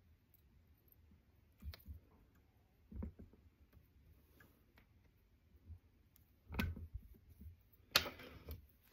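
Faint handling noise from fly tying at a vise: a few scattered small clicks and taps as thread and bobbin are worked, with a louder rustle near the end.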